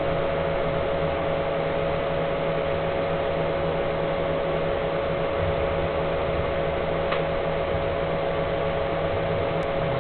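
Steady hum and hiss of background noise, like a running fan, with a constant faint tone in it. There is one small click about seven seconds in.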